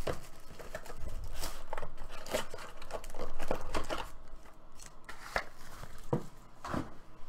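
Crinkling and tearing of trading card packaging as a box is opened and its foil pack handled, in a run of irregular crackles and clicks.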